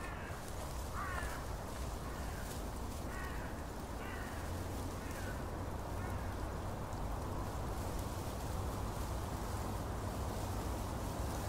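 Open-air festival ambience: a steady low rumble under an even background hiss, with a string of short, pitched calls, about eight of them, during the first six seconds.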